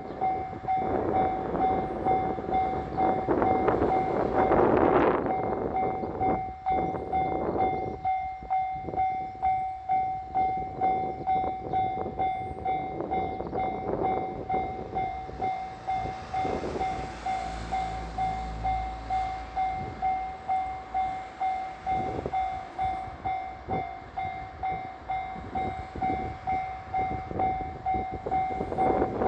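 Japanese railway level-crossing warning bell ringing in a steady, quickly repeating rhythm. There is a rush of noise about four seconds in, a low rumble in the middle, and near the end the two-car KiHa 66/67 diesel train reaches the crossing and its noise swells over the bell.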